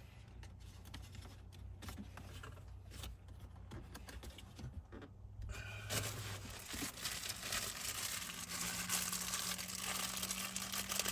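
Hands handling a plastic wiring connector and its harness: scattered faint clicks at first, then from about six seconds in a steady rustling and crinkling.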